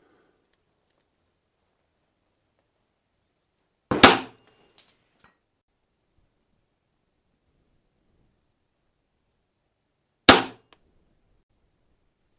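Two shots from a Sig Sauer P320 9mm pistol firing 147-grain M1153 +P+ rounds, about six seconds apart, each a sharp report with a short tail.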